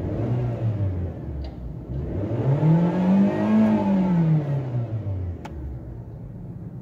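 Suzuki Swift engine revved twice from idle: a short blip, then a longer rev that rises and falls back to idle about five seconds in. It revs up cleanly with no misfire.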